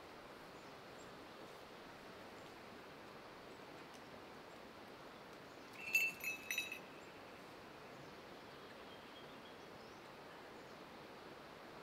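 Falconry bells on a hawk jingling briefly, three or four quick bright rings about six seconds in, over a faint steady outdoor background hiss.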